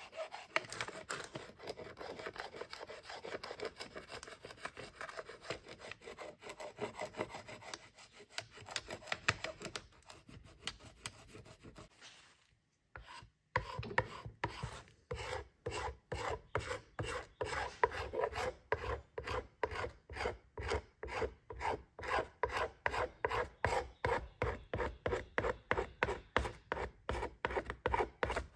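Flat metal scraper dragged over a wooden pistol stock, scraping off finish softened by paint stripper. The strokes are irregular at first. After a short pause about twelve seconds in, they settle into a steady rhythm of about two a second.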